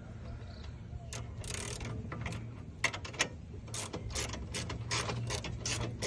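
Irregular metallic clicks and short ratcheting strokes from hand tools, such as a ratchet wrench, over a steady low hum.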